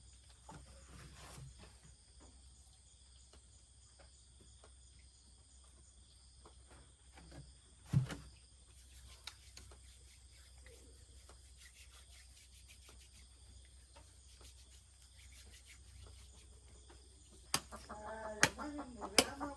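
Quiet outdoor background with a steady high insect-like chirring and a low hum, broken by a single sharp thump about eight seconds in. Near the end come a few sharp knocks and a voice.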